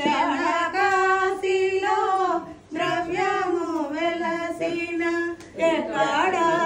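Women singing a Telugu devotional mangalam song to Satyanarayana without accompaniment, in long held melodic phrases with brief breaths between them.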